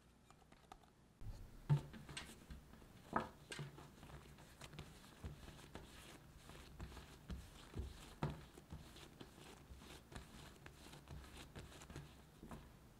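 Hands rounding a ball of bagel dough on a countertop: irregular soft thumps, taps and sticky squishing as the dough is pressed, tucked and turned, starting about a second in.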